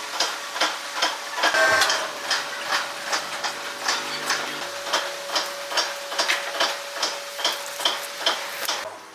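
Sawmill machinery clicking rhythmically, about three clicks a second, over a steady hum and hiss, with a louder clatter about two seconds in.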